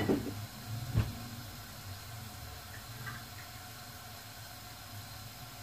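Steady low hum and hiss of a gas stove burner heating an aluminium pot of water, with a single knock about a second in.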